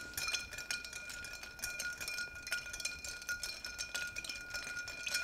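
Copper bar spoon stirring ice in a glass mixing glass to chill a cocktail: a steady stream of quick light clinks and ice rattling, with the glass ringing at two steady tones underneath.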